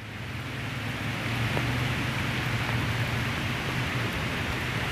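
Heavy rain falling steadily, drops spattering into a puddle on a paved path, fading in over the first second. A low steady rumble runs underneath.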